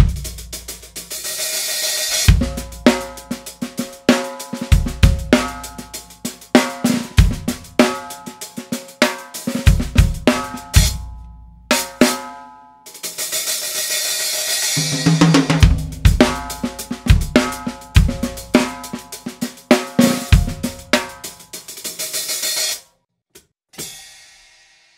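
Drum kit played with sticks: a groove on a small hi-hat, a cracked 14-inch hi-hat top cut down to about 11 inches, with kick drum and snare. It comes in two phrases with a short break between them, each opening with a hissing wash of open hi-hat, and stops a little before the end.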